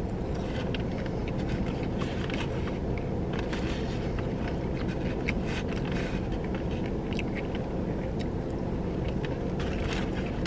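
Steady low hum of a car's cabin, with small scattered clicks and crunches of chewing a fried chicken tender and of fingers picking fries out of a paper box.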